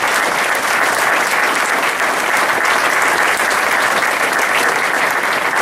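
A banquet-room audience applauding steadily: many hands clapping in a dense, even patter, answering a call for a loud welcome.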